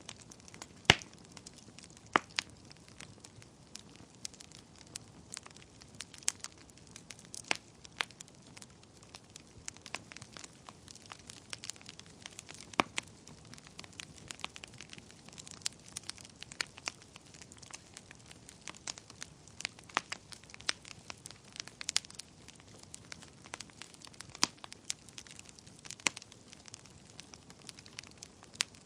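Wood fire burning in a fireplace: irregular sharp crackles and pops over a soft steady hiss, with the loudest pop about a second in.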